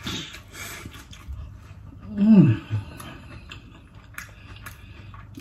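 Chewing and crunching on a panko-crumbed fried oyster, with small crisp clicks throughout. About two seconds in, the eater gives a short hum that falls in pitch.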